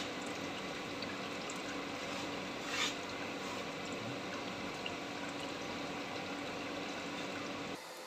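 Used engine oil trickling steadily out from around the oil filter, with a faint steady hum underneath. The sound cuts off abruptly near the end.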